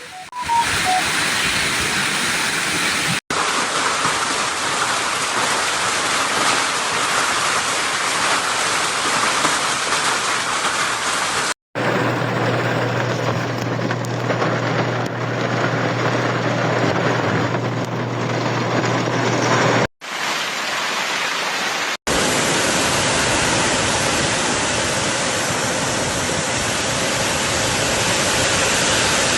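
Steady hiss of heavy storm precipitation pelting down, in several back-to-back clips that break off briefly a few times. A steady low hum runs beneath one stretch in the middle.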